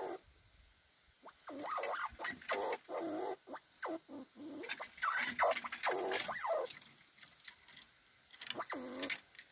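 Eurasian red squirrels calling at each other in a dominance dispute: bursts of short, harsh chattering calls that drop in pitch, each topped by a thin high squeak. There is a pause of about a second and a half near the end, then one more call.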